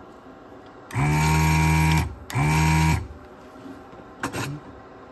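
A small electric motor buzzing in two short bursts, the first about a second long and the second shorter, with a pause between them and a couple of light clicks after.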